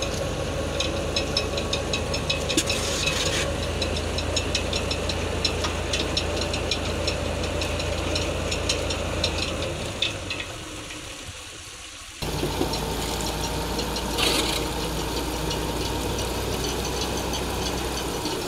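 Tractor engine running steadily, driving a belt-driven tubewell pump, with a fast rattling tick over the low rumble. The pump is being primed and is not yet drawing water. The sound drops off for a couple of seconds and comes back abruptly about twelve seconds in.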